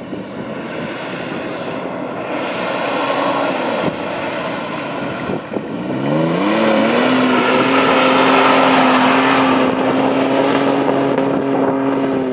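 Toyota 4Runner's engine working hard in soft dune sand: it rises in pitch about six seconds in and is held at high revs as the SUV climbs, dropping away at the very end.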